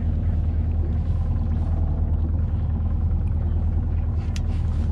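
Boat engine idling, a steady low drone that holds even throughout.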